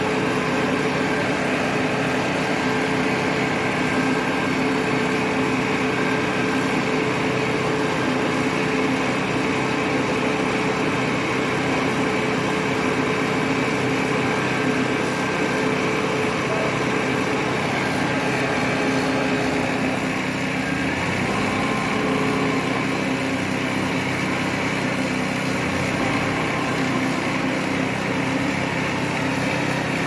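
Self-loading concrete mixer's diesel engine running steadily, driving the drum as it discharges concrete down the chute. One steady tone in the engine noise fades out about two-thirds of the way through.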